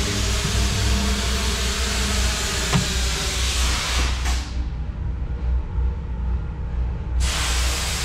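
Steady low machine hum under a loud rushing hiss. The hiss cuts off sharply about four seconds in and starts again near the end, with a single click between.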